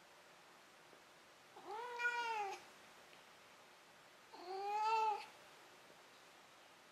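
Cat meowing twice, each call about a second long, rising then falling in pitch.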